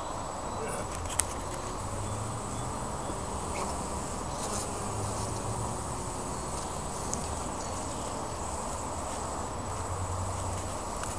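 Honeybees buzzing steadily over an opened hive, with a single sharp click about a second in.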